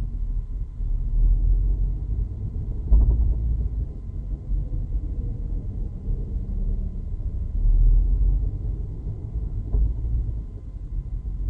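Low in-cabin rumble of a 2016 Chevrolet SS with six-speed manual transmission being driven, with heavy low thumps, the sharpest about three seconds in and another near the end: the bouncing-thumping drivetrain noise that developed 200 miles after purchase.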